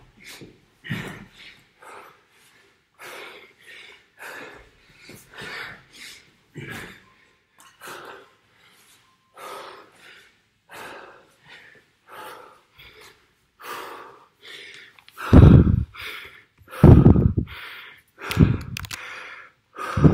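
A man panting hard from intense exercise, quick even breaths roughly three every two seconds. In the last five seconds come four much louder, heavier breaths close to the microphone.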